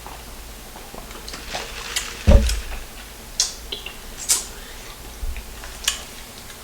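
Close-miked eating sounds of someone chewing sauced fried chicken: scattered sharp mouth clicks and smacks, with one low thump about two seconds in.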